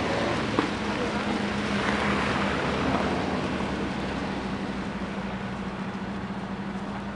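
Road traffic noise: cars running at a street intersection, a steady noise with a low hum underneath that slowly fades, and a single click about half a second in.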